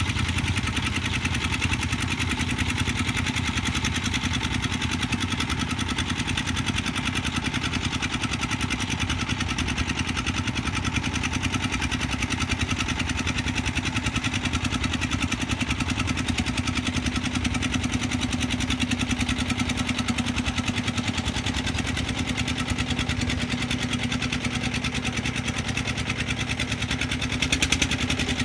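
Single-cylinder diesel engine of a công nông farm truck running steadily with a fast, even beat, its pitch creeping slightly higher in the second half.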